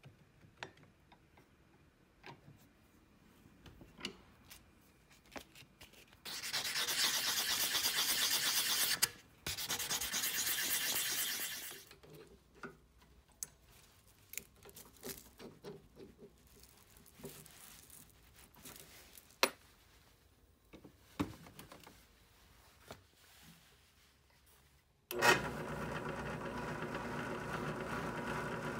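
Steel nail setter being abraded by hand, most likely with a file: two long rasping passes of a few seconds each, then scattered light clicks of handling. About 25 seconds in, a benchtop drill press motor starts abruptly and runs steadily, spinning a buffing wheel.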